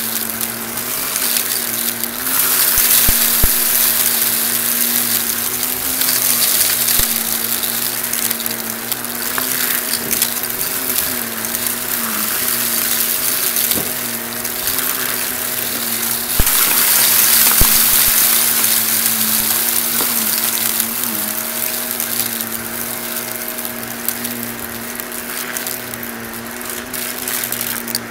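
Shark Navigator XL upright vacuum running and sucking up a pile of confetti, lint and debris from carpet. A steady motor whine sits under a rushing air hiss that swells and fades as the nozzle goes into the pile. The whine dips briefly in pitch a few times, and there are a few sharp clicks of pieces being pulled in.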